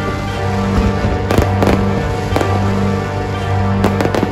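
Aerial fireworks bursting in a string of sharp bangs and crackles, about six in all, over music with long held notes.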